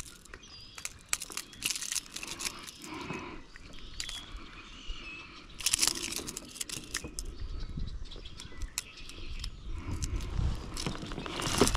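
Scattered clicks, knocks and rustling as a caught fish is handled and unhooked aboard a kayak, louder about halfway through and near the end. Faint bird chirps sound behind.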